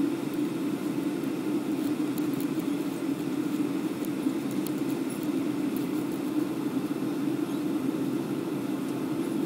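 Aircraft cabin noise: the steady low drone of engines and airflow heard from inside the cabin at cruise, unchanging throughout.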